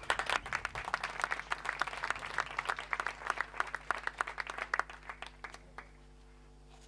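Applause from a small audience as the band's song ends: dense hand-clapping that thins out and dies away about six seconds in.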